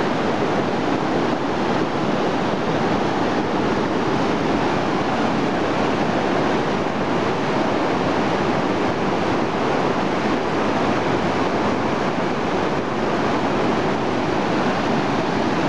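A fast jungle river rushing, a loud steady noise of water that sounds like constant rain.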